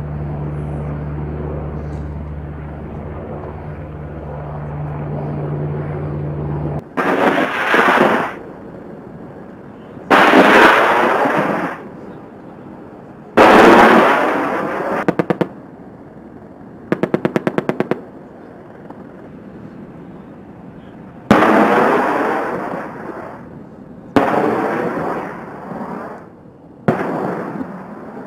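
An AH-64 Apache helicopter's steady rotor and engine hum stops abruptly about seven seconds in. It is followed by a run of rocket fire: six sudden loud blasts, each trailing off over a second or two. Around the middle come two short bursts of rapid 30 mm cannon fire, about ten rounds a second.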